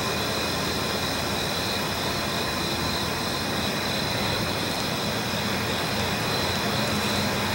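Diesel locomotives running steadily: a continuous low rumble with a few faint steady whining tones above it.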